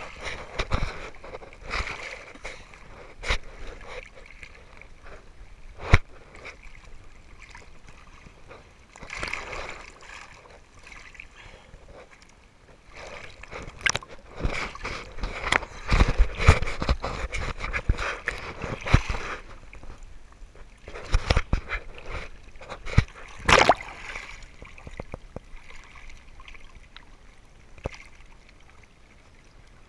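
Seawater sloshing and splashing around a camera held right at the waterline, with scattered sharp knocks against the housing. It is busiest through the middle stretch and calmer near the start and end.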